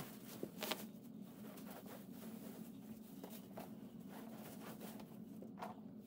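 Faint crinkling of black plastic garbage bags and rope being pulled while the bundle is tied, in a few short scattered rustles over a steady low hum.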